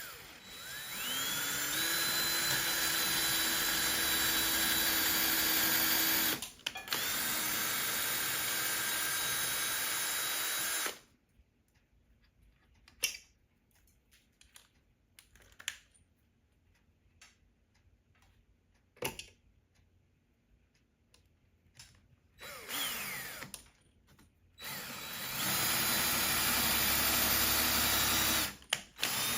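Power drill running in long steady stretches, spinning up at the start and pausing briefly after about six seconds. A quiet stretch with scattered small clicks follows. Then it starts again in a short burst and a run of about three seconds near the end.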